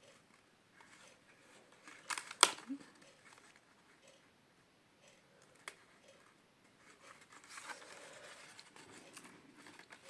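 Cardstock being handled and pressed into shape: a few sharp clicks about two seconds in, another single click near six seconds, then a soft rustling of paper from about seven and a half seconds.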